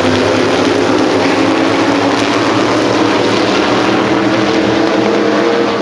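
A pack of Groundpounder vintage-coupe modified race cars running hard together, several engines overlapping in one loud, steady drone. It eases off slightly at the very end.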